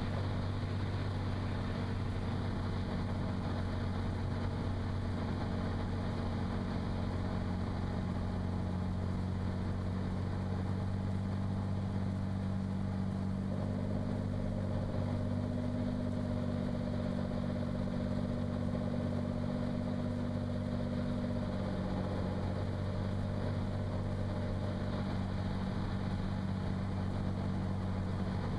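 Cirrus SR22's six-cylinder Continental engine and propeller running steadily, a constant drone heard inside the cabin. Its tone shifts slightly about halfway through and settles back a few seconds later.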